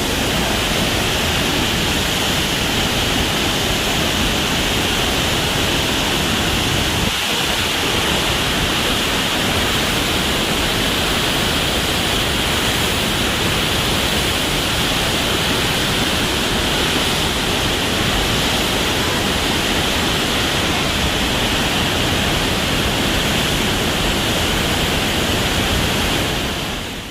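Fast-flowing floodwater rushing: a loud, steady wash of moving water.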